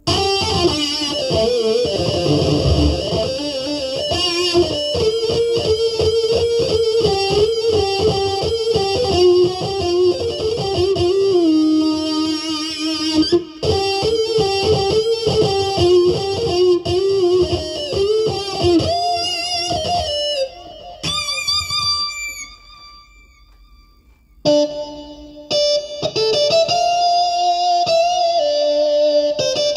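Korg Nautilus keyboard playing a plucked-string, guitar-like patch: a fast melodic line of many quick notes with pitch bends and vibrato. It falls almost silent for a couple of seconds about two-thirds of the way in, then resumes with longer held notes.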